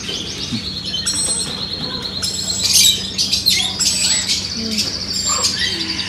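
Many caged birds chirping and trilling at once, with a fast high trill early on and short sharp calls after it, over a steady low hum.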